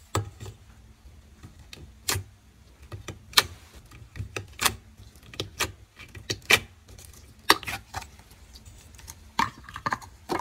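Clear blue slime being squeezed and pulled by hand out of a plastic cup: irregular sharp sticky clicks, the loudest about once a second, with smaller crackles between.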